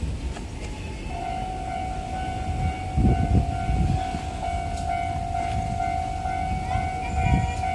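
Railway level-crossing warning alarm starts about a second in and rings on as one steady tone. Two spells of louder low rumbling come over it, around three seconds in and again near the end.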